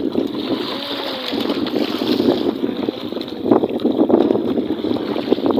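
Steady running noise of a small fishing boat at sea, with wind on the microphone.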